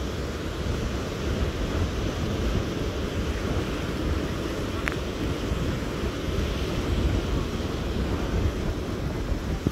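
Ocean surf breaking steadily on a sandy beach, mixed with wind buffeting the microphone in a low, gusty rumble.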